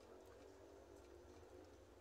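Near silence: a faint steady low hum with a few faint ticks.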